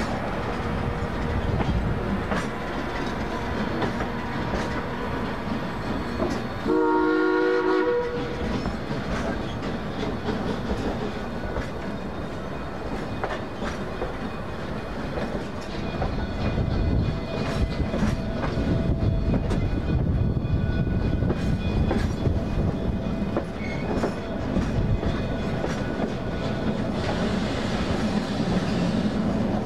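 Narrow-gauge passenger coaches rolling slowly, their wheels clicking over rail joints and switches. About seven seconds in, the steam locomotive's whistle gives one short blast, sounding several tones at once.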